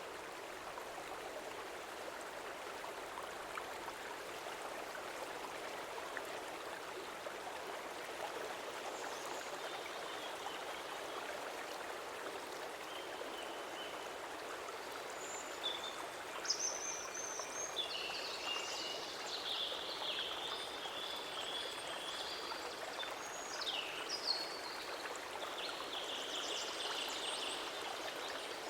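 Stream water flowing steadily, with birds singing short high whistles and trills over it from about halfway in.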